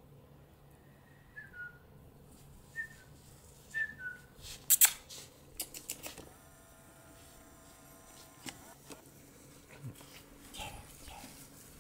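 Three short, high chirps, each dropping in pitch, in the first four seconds, then loud sharp clicks and rustling as the camera is handled about halfway through, with a few softer knocks near the end.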